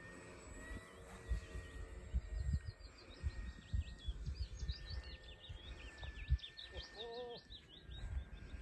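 Small birds chirping in quick repeated notes, with wind buffeting the microphone in low thumps. A short lower call comes about seven seconds in, and under it all is a faint, steady, slightly wavering whine of the distant plane's engine.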